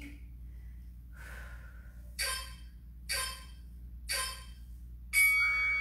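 A woman's sharp exhales through the mouth, three times about a second apart, in time with exercise reps. About five seconds in, a louder ringing chime with several steady tones starts and keeps sounding.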